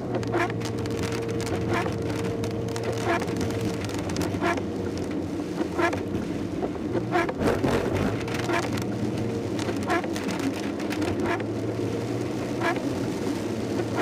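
Inside a Suzuki Swift driving through heavy rain: the engine hums steadily under the hiss of rain and wet tyres. The windscreen wipers sweep evenly about every second and a third.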